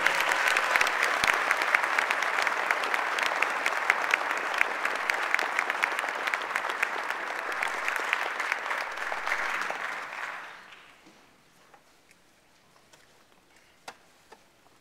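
Audience applauding with many hands clapping, fading out about ten seconds in.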